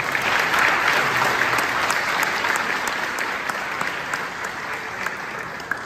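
Audience applauding, starting suddenly, loudest in the first second or two and slowly dying down toward the end.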